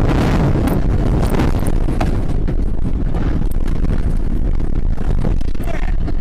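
Vehicle crash heard from a dashcam: a loud, continuous rumble and rattle with scattered sharp knocks and cracks as the vehicle leaves the road and a trailer overturns, with wind buffeting the microphone.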